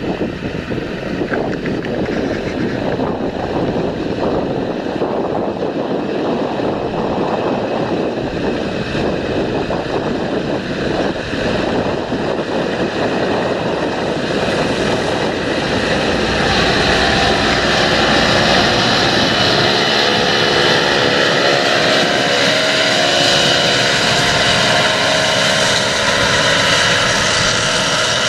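John Deere 7230R tractor's six-cylinder diesel running under load while pulling a Väderstad Rapid seed drill through tilled soil. The steady rumble grows a little louder and turns into a clearly pitched engine hum about halfway through as the tractor passes close by.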